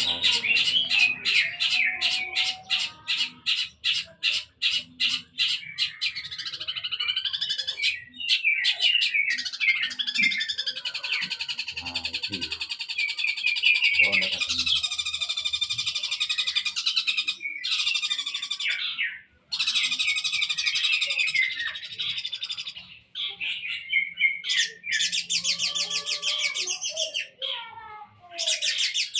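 Songbirds singing in a 'masteran' mix of recorded bird song: fast series of sharp chips, chattering trills and whistled phrases follow one another, broken by a few short pauses.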